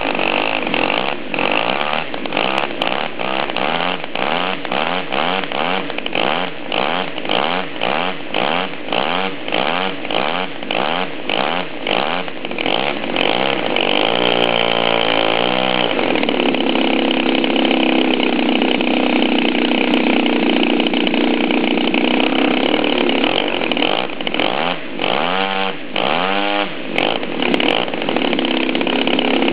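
Turnigy 53cc two-stroke flat-twin model aircraft engine turning a 22x10 propeller on its first run, not yet tuned or run in. For the first half its speed rises and falls two or three times a second. It then dips and picks up again and runs steadily at a higher speed, with a few brief dips near the end.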